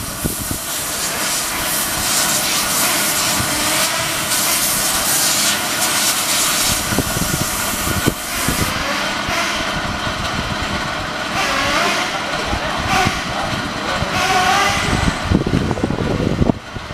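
Team Associated RC10B6.1D 1/10 electric buggy's Ares 8.5T brushless motor whining and rising and falling in pitch as it is driven on a dirt track, under a loud, steady hiss.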